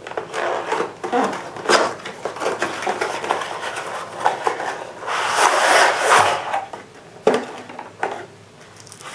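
A cardboard box being opened and handled on a countertop: rubbing and sliding of cardboard with a few sharp knocks, and a longer rustling scrape about five seconds in as the sheathed knife is slid out of the box.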